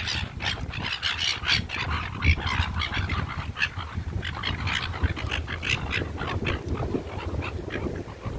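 A flock of silver gulls calling, a busy flurry of short squawks one after another, over wind rumble on the microphone.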